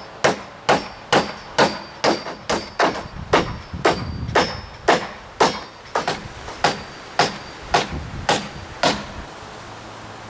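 Claw hammer driving 3½-inch galvanized spiral nails into deck beam timbers, tacking them into place: a steady run of about twenty blows, roughly two a second, with a faint metallic ring on many of them, stopping about nine seconds in.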